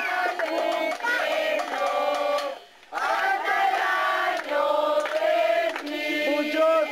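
Group of children and adults singing a birthday song together, with hand clapping; the singing breaks off briefly a little under three seconds in.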